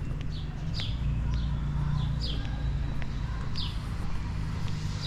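A small bird giving short, falling chirps every second or so, over a steady low rumble of city traffic.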